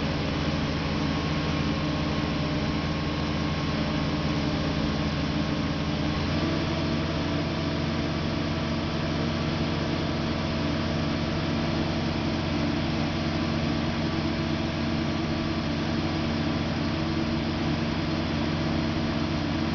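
Truck-mounted crane's engine running steadily under hoist work, its pitch stepping up slightly about six seconds in as the engine speeds up.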